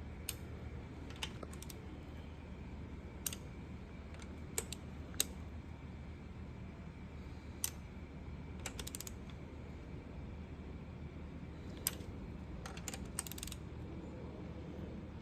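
Scattered sharp metal clicks, some single and some in short quick runs, from a wrench and socket being worked around the cylinder-head stud nuts of a VQ35DE V6 as they are brought up toward 30 ft-lb in repeated passes. A steady low hum runs underneath.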